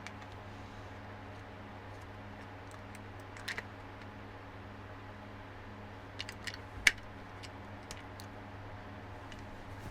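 Scattered light clicks and taps of a metal pick working at the plastic casing of a cordless electric carving knife, with a sharper click about two-thirds of the way through, over a steady low hum.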